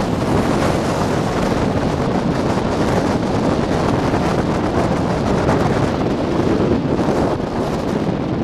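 Strong wind buffeting the camera microphone, a steady loud rushing rumble.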